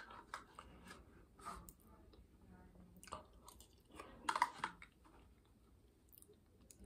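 Faint wet chewing and mouth clicks of a person eating soft gelatin dessert, with a brief louder sound about four seconds in.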